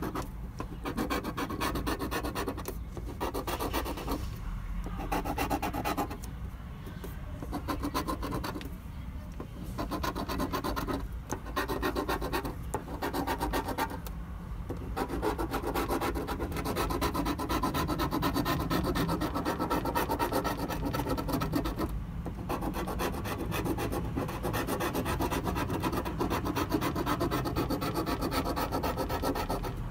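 A scratch-off lottery ticket being scratched, the coating scraped off in quick repeated strokes, with brief pauses between runs.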